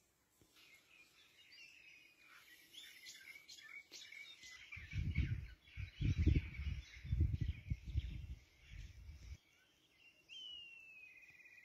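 Small birds chirping and calling, with one call falling in pitch near the end. Through the middle there is a few seconds of low rumbling in uneven gusts, the loudest sound.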